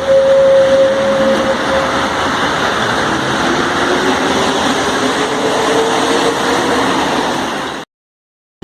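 Mexico City Metro train's traction drive accelerating: a whine rising slowly in pitch over the train's running noise. The recording cuts off abruptly near the end.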